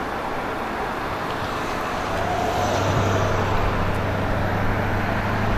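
Road traffic going by: a steady wash of vehicle noise, with a low, even engine hum setting in about two seconds in.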